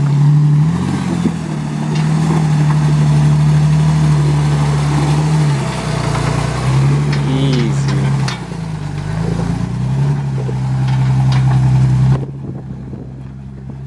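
Lifted Jeep Cherokee XJ's engine running at low revs while rock crawling, its pitch rising and falling again and again as the throttle is fed on and off, with a few sharp clicks. About twelve seconds in it drops to a quieter, steadier run.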